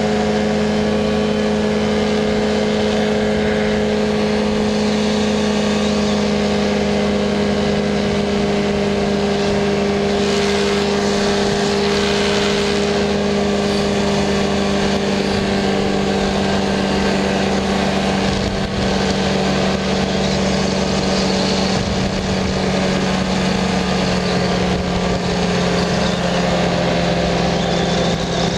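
Powered parachute's engine and propeller running steadily at climb power, a constant drone whose pitch sags slightly over the climb.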